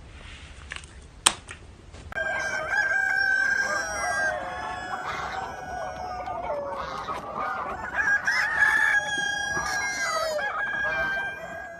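Several overlapping animal calls, pitched and bending, starting about two seconds in and going on to near the end, after a single sharp click.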